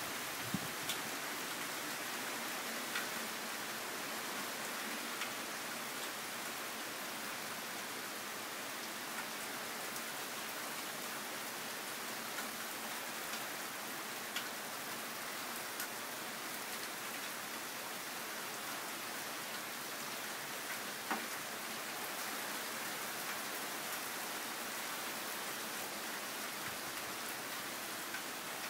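Steady rain falling on pavement, parked cars and trees, with a few louder drop ticks now and then. It is rain from an approaching hurricane.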